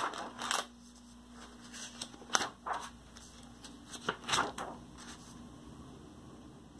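Paper pages of a spiral-bound sketchbook being turned by hand: several short rustles and flaps, the strongest a little over two seconds in and again around four seconds in.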